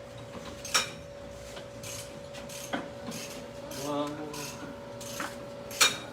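Metal tools and suspension parts clinking and scraping during under-chassis work, with two sharp clanks, one about a second in and one near the end, over a steady faint hum.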